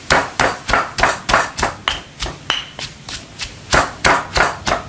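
Stone pestle pounding chilies and garlic in a heavy stone mortar: a steady run of knocks, about three a second.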